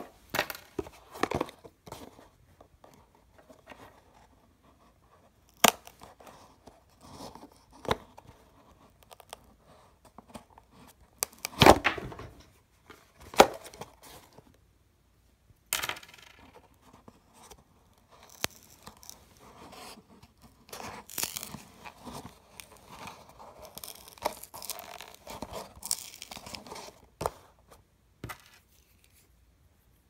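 A small cardboard box being opened by hand: fingernails pick and scrape at its sealed edge and flap, with short tearing sounds and scattered knocks of the box against a wooden table.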